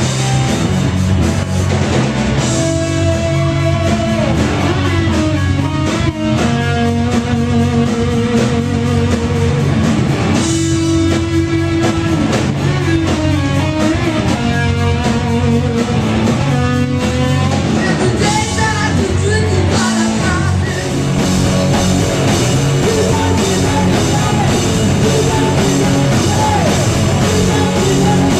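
A rock band playing live: electric guitars and a drum kit, with a voice singing over them.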